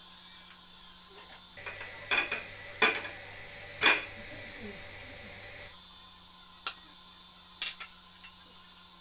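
Sharp clanks and knocks of a square metal baking tin against a plate as a baked sponge cake is turned out of it: a cluster of clatters about two to four seconds in, and one more knock near the end.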